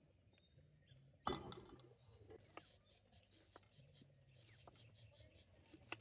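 A chef's knife knocking on a wooden cutting board in single, light chops about once a second while onion is diced, after one louder clatter about a second in. Crickets chirr steadily and faintly underneath.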